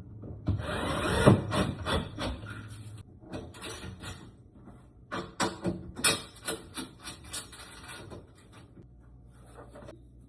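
Scraping and rubbing on wood for a couple of seconds, then a run of sharp knocks and clicks, as work is done on a built-in refrigerator's cabinet.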